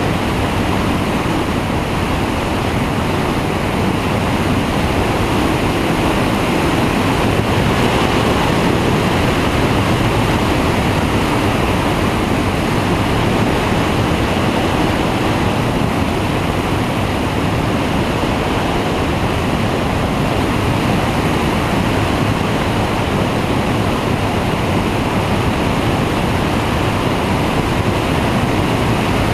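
Flex-wing microlight trike in cruise flight: a steady rush of airflow over a wing-mounted camera, mixed with its pusher engine and propeller running.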